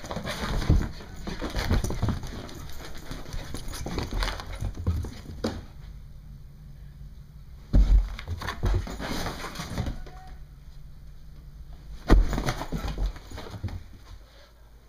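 Irregular thumps and footsteps on carpeted floor and carpeted stairs as a Brittany puppy runs down them with the person filming following, with heavier thumps near the start, about 8 seconds in and about 12 seconds in.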